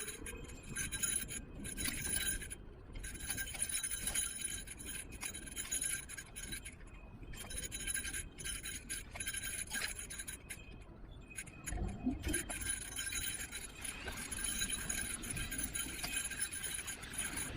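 Niu KQi3 Pro electric kick scooter being ridden: jingling, clinking rattles over the pavement with low road rumble, and a steady high whine that cuts out briefly a few times.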